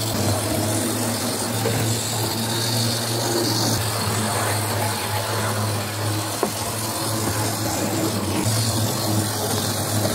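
Electric model train locomotive running around its track: a steady hum from its small motor and wheels on the rails.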